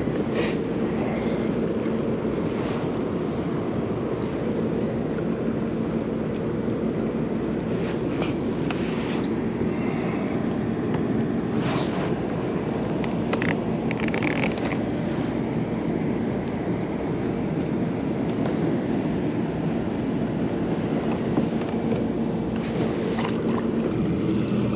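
A steady motor hum with a noisy wash over it, broken by a few brief knocks or splashes.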